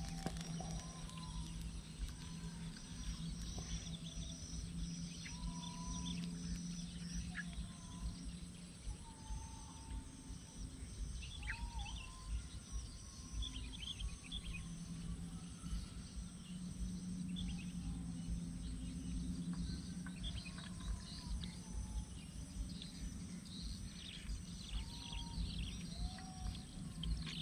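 Swamp ambience: scattered short chirping calls over a steady high whine and a low hum that fades for a few seconds in the middle and then returns.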